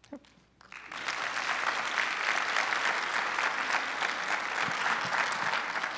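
Audience applauding, a dense clapping that sets in about a second in.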